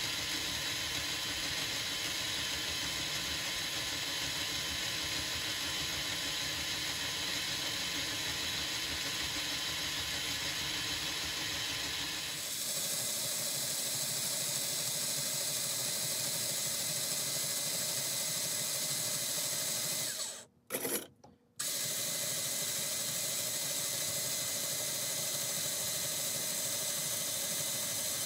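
Black and Decker 8V cordless drill running steadily, spinning the copper core wire while the coiling wire winds onto it. The sound changes character about twelve seconds in and cuts out for about a second near two-thirds of the way through.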